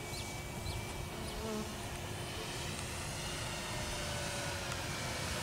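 Electric motor and propeller of an Airfield 57-inch T-28 Trojan RC model plane, heard as a faint buzzing whine on the landing approach, its pitch slowly falling as the throttle is eased back.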